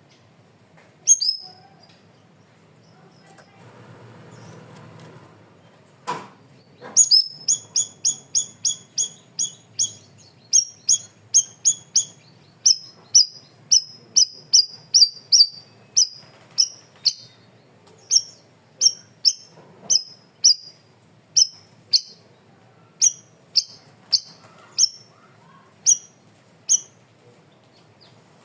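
Cucak rawis (bayeman) bird singing a long run of sharp, repeated, downward-sweeping whistled notes, fast at first and then slowing to about one or two a second. A single knock comes just before the run starts.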